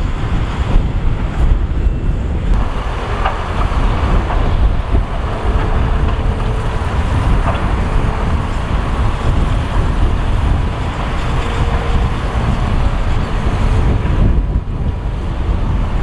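Dump truck's diesel engine running as its hydraulic hoist tips the loaded bed up to unload soil, with a faint steady whine through the middle. Heavy low rumble of wind on the microphone throughout.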